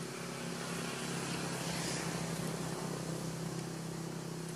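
A steady low mechanical hum with an even hiss over it, swelling a little about two seconds in.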